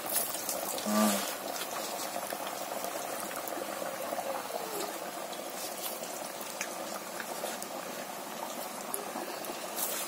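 Batuk batter deep-frying in hot oil in an iron kadhai: a steady sizzle with scattered small crackles and a sharper crackle near the end.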